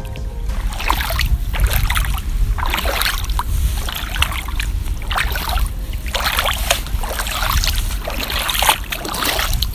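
Shallow seawater splashing around bare feet wading at the water's edge, in irregular splashes about once a second over a steady low rumble.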